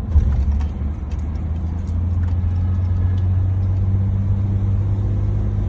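Van engine and road noise while driving, a steady low drone that steps up slightly in pitch about two seconds in as the van pulls up a hill.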